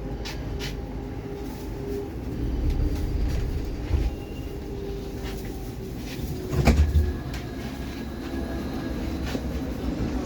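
A Baltiets metro train standing at a station, its on-board equipment giving a steady low hum. There are a few clicks near the start and two dull thumps, about four and seven seconds in, the second the louder.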